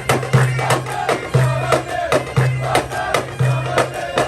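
Traditional-style background music: a reedy wind-instrument melody over a steady drum beat, with a low drum stroke about once a second and sharper hits in between.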